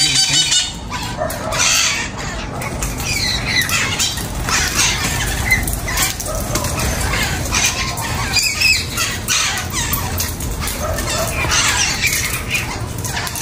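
A flock of green parakeets calling over one another, many short squawks overlapping without a break while they feed.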